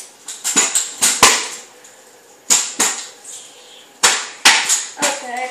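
Mini scooter clacking and knocking on a hard floor as someone tries to ride it: irregular sharp clacks, often two or three close together, with short pauses between.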